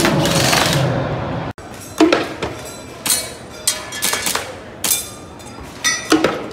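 Loud, busy mixed noise with music until a sudden break about a second and a half in, then a run of about ten sharp cracks at irregular spacing, some in quick pairs and triples: shots and target hits as a shooter works through an indoor practical-shooting stage.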